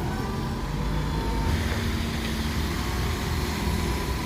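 Steady rumble of a vehicle being driven: engine and road noise with a faint steady hum, no sharp events.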